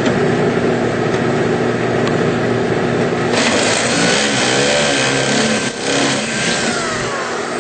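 Power drill with a 5/16 inch bit starting about three seconds in and drilling a hole through the fan's molding, the pitch wavering as it bites, then winding down near the end. A steady machinery hum runs underneath.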